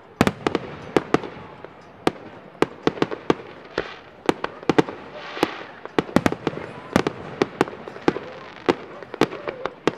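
Aerial firework shells bursting in quick, irregular succession, several bangs a second, each echoing briefly, with a short hiss about halfway through.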